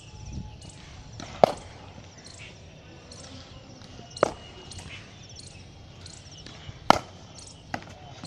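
Cricket bat hitting a ball for catching practice: three sharp knocks a little under three seconds apart, with a fainter knock soon after the third.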